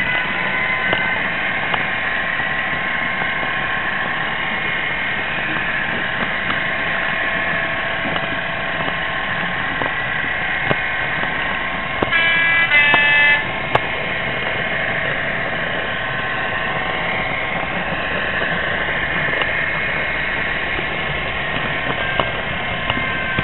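Model railway DCC sound decoder playing a British diesel locomotive's engine sound, running steadily through the model's small speaker. About twelve seconds in, the locomotive's two-tone horn sounds once for about a second.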